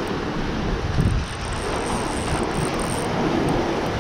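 Strong wind buffeting the microphone, a steady low rumble, with surf washing behind it.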